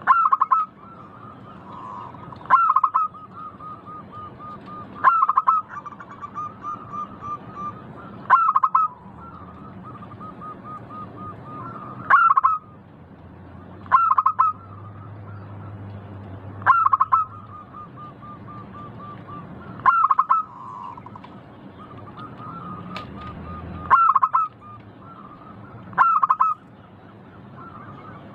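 Zebra dove singing its song over and over: a run of soft, quick notes that leads into a louder coo, about every two to four seconds, around ten times.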